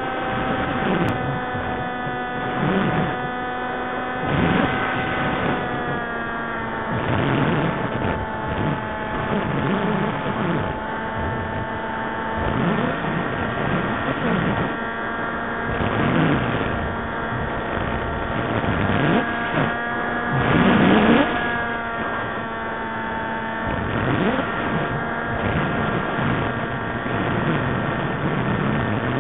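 Electric motor and propellers of an FPV model aircraft heard through its onboard camera: a steady whine with several overtones, shifting pitch a few times as the throttle changes, with repeated rushes of passing air.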